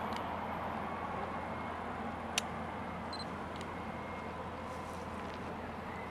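Steady outdoor background noise with a faint hum and one sharp click a little over two seconds in.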